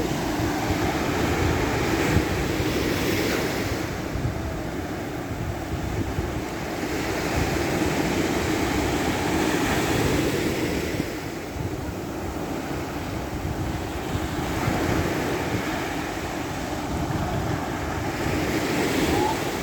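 Sea waves breaking on a beach: a continuous surf hiss that swells and eases every few seconds. Wind buffets the microphone underneath.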